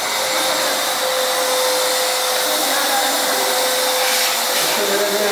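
Small electric balloon pump running steadily, blowing air into balloons: an even rush of air with a steady motor whine.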